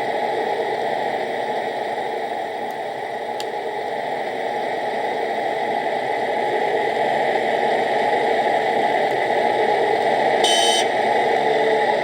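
All-metal RC excavator running: a steady noisy mechanical hum with a faint whine. A brief high squeak or beep comes about ten seconds in.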